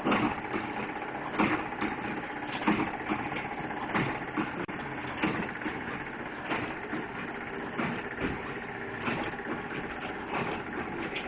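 Liquid filling and packing machine running, with a regular stroke about every one and a third seconds as it cycles, over a steady mechanical hum.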